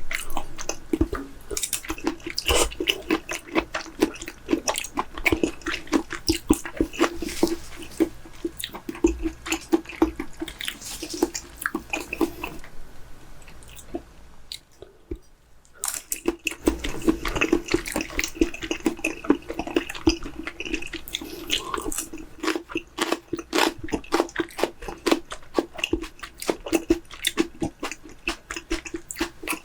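Close-up wet chewing and biting of raw chicken breast sashimi, many small clicks and squelches, with a short pause about halfway through.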